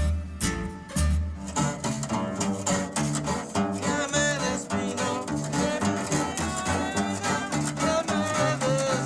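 Mixtec string music: a violin playing a wavering melody over plucked and strummed guitars and a bass line, with a brief pause just under a second in.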